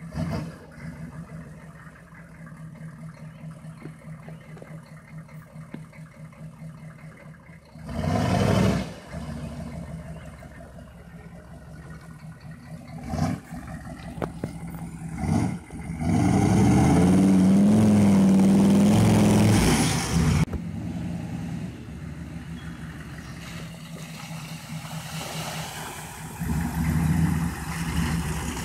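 GMC Yukon's 6.5-litre turbo diesel V8 running at low revs as the truck crawls along. It is interrupted by a few short loud bursts, then revs for about four seconds with the pitch rising before it drops back to a steady run.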